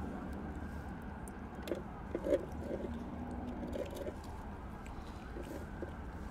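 Steady low rumble of distant road traffic, with a few short, faint sounds between about two and four seconds in.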